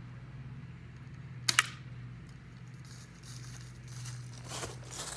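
A single airsoft rifle shot about a second and a half in: a brief, sharp double crack as the gun fires and the BB strikes a plastic flower pot. A softer rustle follows near the end, over a steady low hum.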